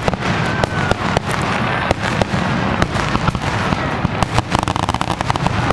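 Aerial fireworks finale: many shells launching and bursting in quick, overlapping succession, a dense run of bangs and crackles with no break.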